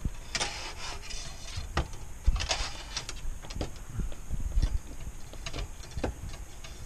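Scattered clicks, light knocks and rustling from tools and hooks being handled on a metal wire shelving rack.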